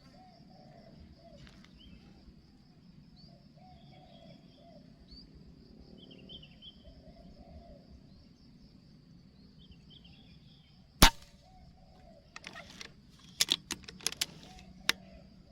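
Doves cooing over a steady insect drone, then a single sharp PCP air rifle shot about eleven seconds in, followed by a run of quick sharp clicks.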